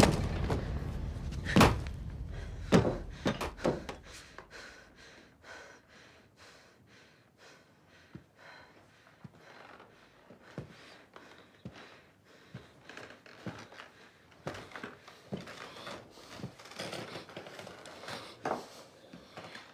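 A few loud thumps and bangs in the first few seconds, then a long quieter stretch of scattered small knocks and clicks.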